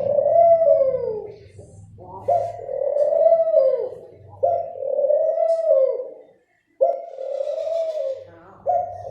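A dove cooing over and over: about five low coo phrases, each a second or two long and dipping in pitch at the end, with a brief break just past the middle.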